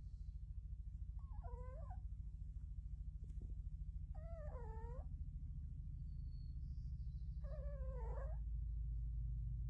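Cat snoring: a steady low rumble, with a short wavering, whining note about every three seconds, three times in all, in time with its breaths.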